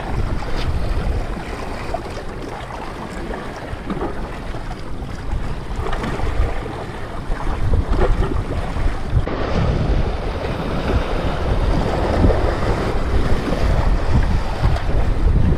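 Sea waves washing and splashing against shoreline rocks in strong monsoon wind, with wind buffeting the action camera's microphone as a low rumble. The wash grows somewhat louder about halfway through.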